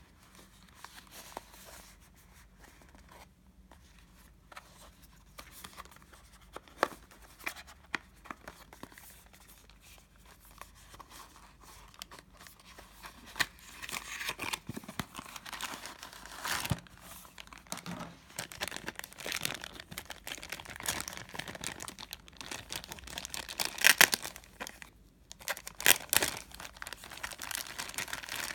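Unboxing noise from a cardboard box and a clear plastic bag. There are sparse taps and clicks as the box is handled and its flap is opened, then dense crinkling and rustling from about halfway as the plastic bag is pulled out and handled. A few sharp crackles come near the end.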